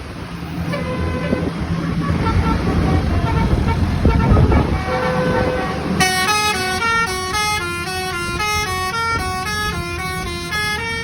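Loud low rumble with faint horn notes, then about six seconds in a Basuri telolet bus horn plays a fast melody of clear stepped notes, several a second.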